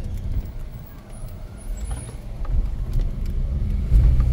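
Car driving along a road, a steady low rumble of engine and tyres heard from inside the cabin. It dips about a second in, then builds and is loudest near the end.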